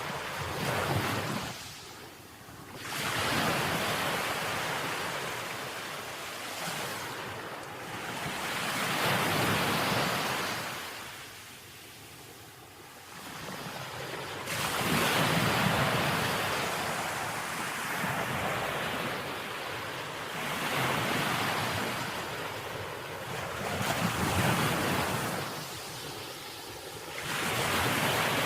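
Ocean waves breaking on a beach: a steady wash of surf that swells and falls away in slow waves every few seconds, with wind.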